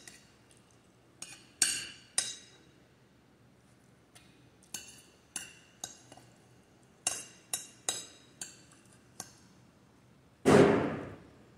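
Metal spoon clinking against a glass bowl while eating, about a dozen sharp, ringing clinks at uneven intervals. About ten and a half seconds in comes a single louder, duller knock with a short rustle.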